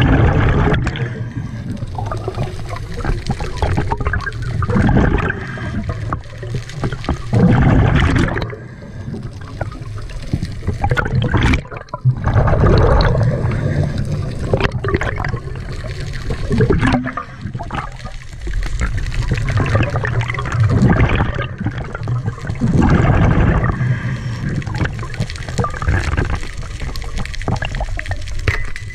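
Scuba diver breathing through a regulator underwater, heard from a camera in its housing: a rush of exhaled bubbles rising in repeated swells about every two to three seconds.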